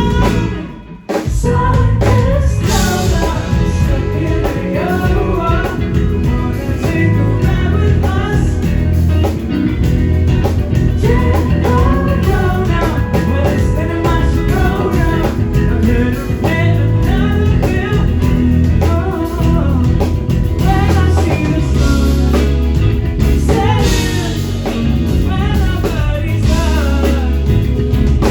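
Live rock band playing: a lead vocal sings over guitar and a drum kit with a heavy low end. The music breaks off briefly about a second in, then comes back in full.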